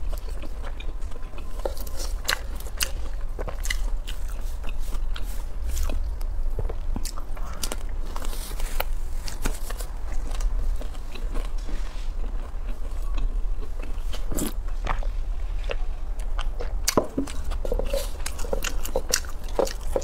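Close-miked eating: a person biting and chewing a pan-fried stuffed vegetable pocket pie, its crisp fried crust crunching and crackling in short irregular bites throughout, busiest near the start and again near the end.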